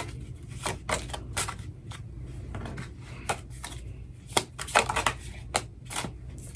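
A deck of oracle cards being shuffled and pulled by hand: about a dozen short, irregular slaps and clicks of cards against each other, over a steady low hum.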